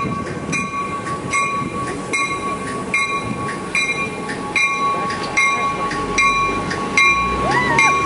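MetroRail train approaching with a warning bell ringing steadily, about one stroke every 0.8 seconds, over a steady tone. A short rising-and-falling tone comes near the end.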